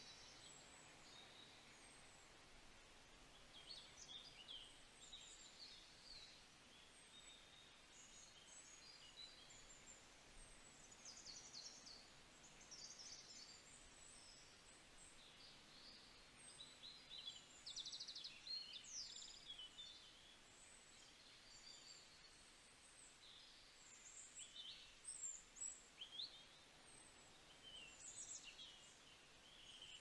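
Faint, scattered chirps and short calls of several songbirds over a low background hiss, with busier bursts of calling about two-thirds of the way in and near the end.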